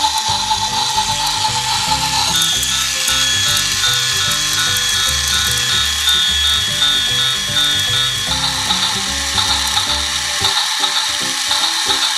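Plastic gearbox of a battery-powered toy Thomas the Tank Engine running, a fast rattling click of gears, with a tinny electronic tune playing along and a steady beeping from about two seconds in until about eight seconds in.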